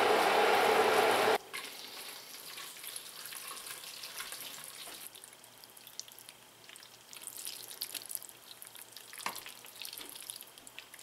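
Silicone spatula stirring thick, cheesy cooked pasta in a metal stockpot, making soft wet squelching and scraping sounds with small clicks. A louder steady noise cuts off abruptly about a second and a half in.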